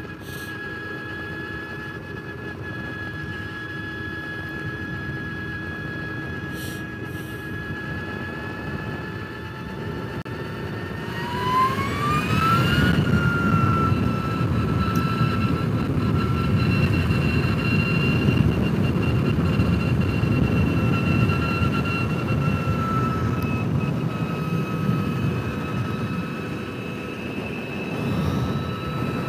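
Energica electric motorcycle riding at speed: a steady electric-motor whine that rises in pitch as the bike accelerates about eleven seconds in, then holds, dipping slightly near the end. A rush of wind and road noise grows louder with the acceleration.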